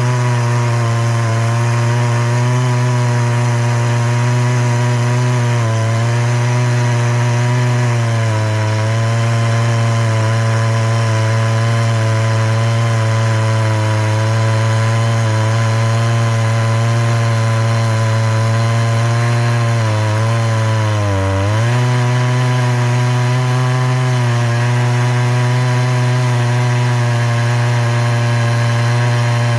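Chainsaw under load, milling wood with a 36-inch Husqvarna C85 chain reground from crosscut to ripping (milling) profile. The engine holds a steady pitch, dips briefly about twenty seconds in, and picks back up.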